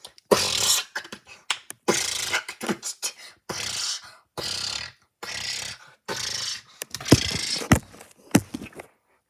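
A person beatboxing: a run of breathy hissing bursts with sharp pops and thumps between them, the hardest hits near the end.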